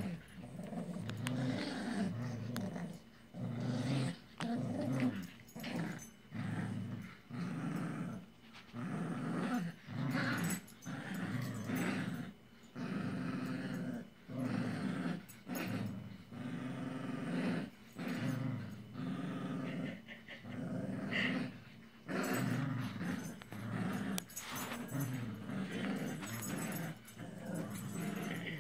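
Small dogs growling in play while tugging against each other over a toy, in a long run of low growls with short breaks about once a second.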